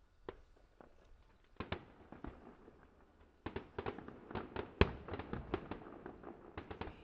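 Fireworks bursting in the distance: a few scattered bangs, then from about halfway a rapid string of sharp bangs and pops.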